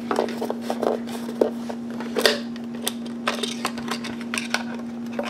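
Irregular light clicks and knocks as the opened plastic housing of a portable jump starter and its wiring are handled, over a steady hum.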